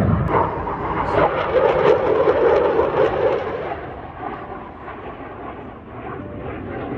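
Military fast jet flying low overhead: a loud rushing jet noise, strongest in the first few seconds, then dying away.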